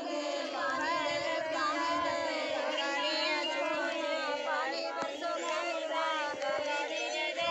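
A group of women singing a bhajan (Hindu devotional song) together, many voices at once: a prayer sung for rain.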